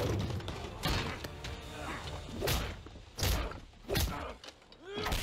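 Fist-fight punches landing: a series of heavy blows, about five over the few seconds, with a man's grunts at the start and again near the end.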